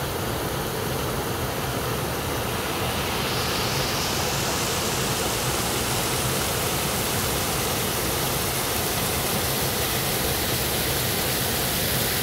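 Creek water pouring over low, stepped rock ledges: a steady rushing noise from a small cascade waterfall, turning brighter and hissier a few seconds in.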